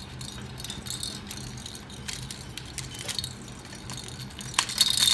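A Moluccan cockatoo playing with a rattle ball toy: scattered light clicks and rattles, then loud, rapid rattling as the ball is shaken hard near the end.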